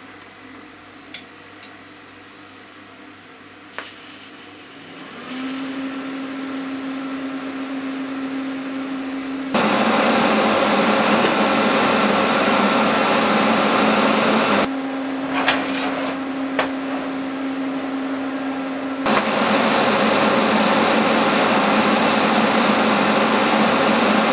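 TIG welding arc on a steel vice handle: a steady hum comes in a few seconds in, then a loud, even buzzing hiss about ten seconds in, which drops back to the hum for a few seconds and rises loud again.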